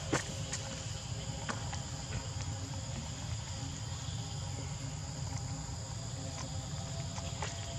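Steady insect chorus of several even, high-pitched tones over a low rumble, with a sharp click just at the start and a few fainter ticks later.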